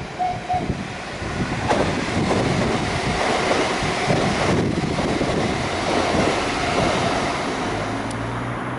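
Train passing close by: a steady rushing rumble of the cars going past, mixed with wind buffeting the microphone. A faint short echo of the horn at the start.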